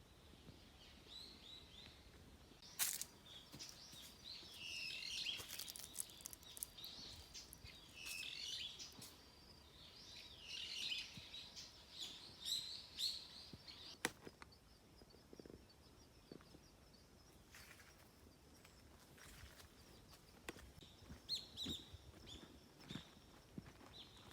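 Small birds chirping and twittering in several bursts, fairly faint, with a few sharp clicks among them.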